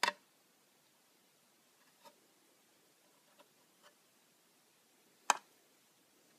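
Sharp clicks and taps as long tweezers handle a clear container: a loud click right at the start and another about five seconds in, with a few faint taps between.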